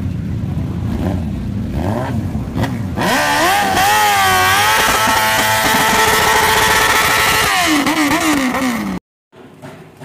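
Suzuki-based custom cafe-racer motorcycle engine running at a low rumble, then about three seconds in revved hard and held high, its pitch wavering, as the rear tyre spins in a smoky burnout. Near the end the revs fall away before the sound cuts off abruptly.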